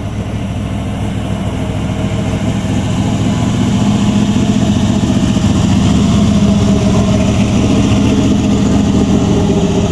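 1950s Ford F-100 pickup's engine running at low revs as the truck rolls slowly past, getting steadily louder as it nears and then holding steady.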